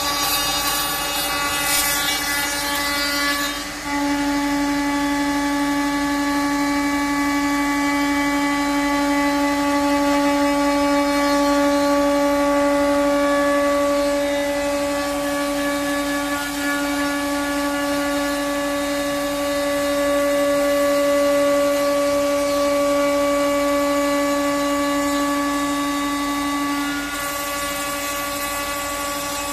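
CNC router spindle running with a steady high whine while the bit mills a profile into a solid pine panel. The pitch drops slightly about four seconds in and rises back near the end, and there is a hiss of cutting in the first few seconds.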